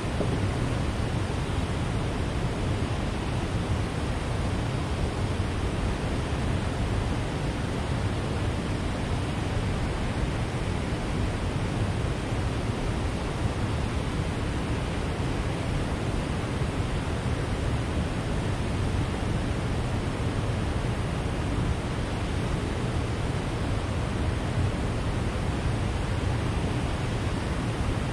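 Steady rushing noise of water flowing at the foot of a dam, even and unbroken, heaviest in the low range.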